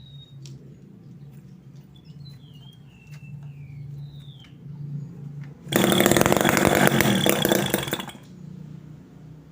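Homemade mini two-stroke engine built from a refrigerator compressor: a lower whirr builds for several seconds, then the engine fires and runs loud and fast for about two seconds before dying away. Birds chirp faintly in the first half.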